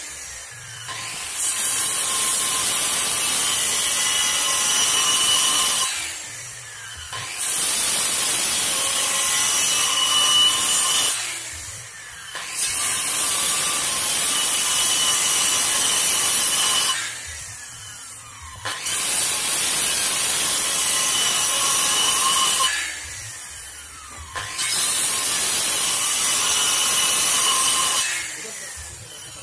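Handheld Maktec circular saw cutting into a wooden board in five separate passes of about four to five seconds each. The motor spins down briefly between passes.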